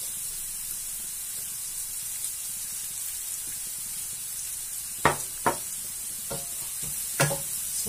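Chopped leeks sizzling in olive oil in a stainless steel pan, a steady hiss. Over the last three seconds a wooden spoon stirring them knocks sharply against the pan several times.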